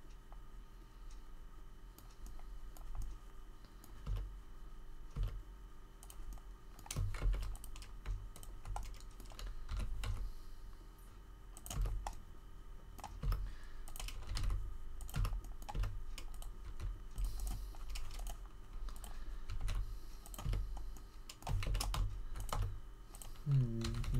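Computer keyboard keys pressed in irregular short runs and single taps, the way shortcut keys are used while modelling in Blender, each with a dull low knock. A faint steady hum runs underneath.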